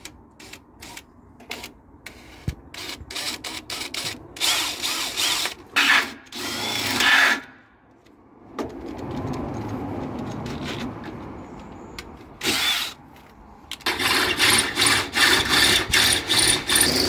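DeWalt cordless drill boring a small pilot hole into blue-painted metal, throwing off shavings. It runs in bursts of a few seconds with short stops, a quieter steady stretch in the middle, and the last burst near the end is chopped into rapid pulses.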